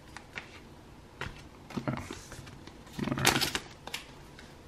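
Pokémon trading cards handled in the hand: a few short papery rustles and flicks as cards are slid off the stack, the loudest about three seconds in.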